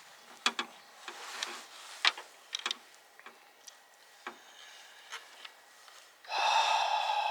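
Light clicks and taps of door-handle rods, clips and plastic parts being handled and fitted inside a truck door. About six seconds in, a louder, steady high-pitched sound with several tones starts and carries on.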